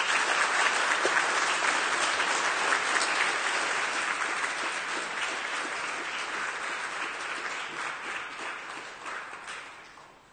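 Audience applauding, a dense patter of many hands clapping that fades away over the last two seconds.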